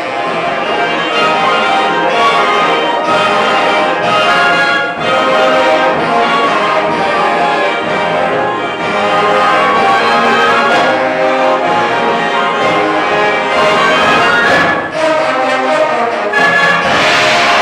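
Concert band of woodwinds and brass playing full sustained chords together, with brief breaks between phrases.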